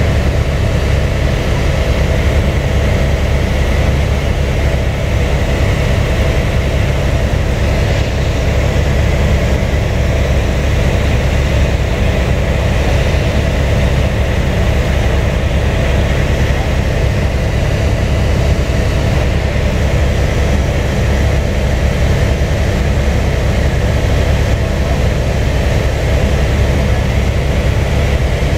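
Helicopter in flight, heard from inside the cabin: the steady, loud drone of turbine and rotor, with a strong low hum that does not change.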